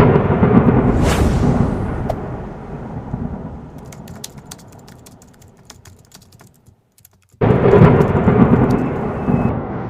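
Deep rumble of thunder that dies away over several seconds with scattered crackles. It cuts to silence, then a second rumble starts abruptly about seven and a half seconds in.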